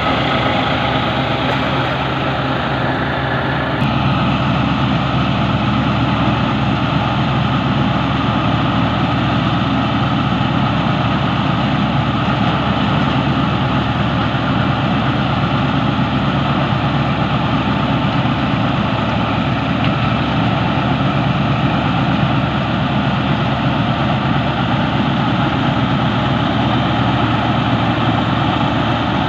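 Massey Ferguson 385 tractor's diesel engine running steadily under load, driving a wheat-straw reaper that cuts stubble and blows the chopped straw into a trailer: a continuous engine drone mixed with the machine's whirring rush.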